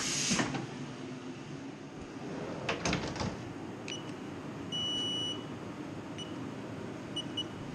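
Haas CNC mill control panel beeping as its keys are pressed: several short beeps and one longer beep about five seconds in, with a quick double beep near the end, over the machine's steady hum. At the very start, a short hiss as the tool holder is seated in the spindle.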